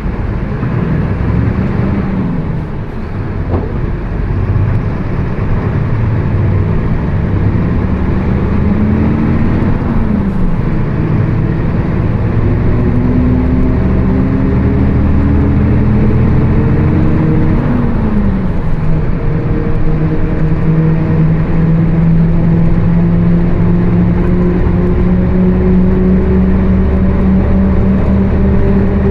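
Mercedes-Benz OF 1724 BlueTec 5 bus pulling away and accelerating through its gears: the engine note climbs and drops back at each shift, three times. After the last shift it settles into a steady drone, with a thinner whine slowly rising in pitch as the bus gains speed: the differential howling loudly.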